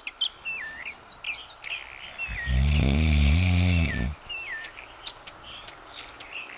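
A person snoring: one long, low snore about two and a half seconds in. Steady high chirping runs underneath, with a few short falling chirps.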